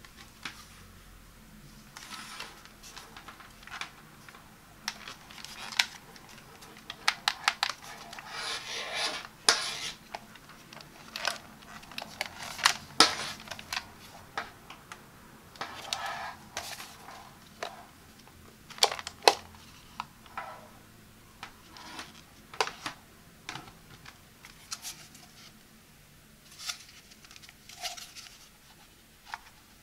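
Hard plastic of a handheld garment steamer being handled: irregular taps, clicks and short scrapes as it is turned over and its water tank and fill cap are worked by hand.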